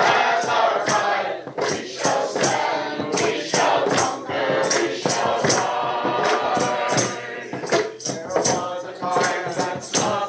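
A choir singing a rousing song together, with regular sharp percussive strikes keeping the beat at about two to three a second.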